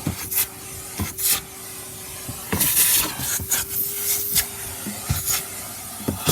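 Vacuum brush nozzle rubbing and scraping around a car's gear stick in short, irregular strokes, with a few knocks, over a faint steady hum.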